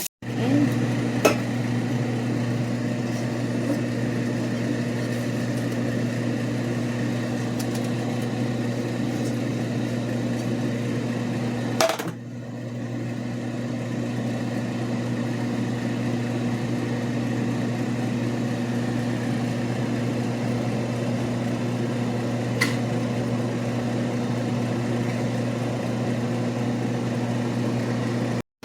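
A kitchen appliance motor running with a steady electric hum, with a few light clicks and knocks on top.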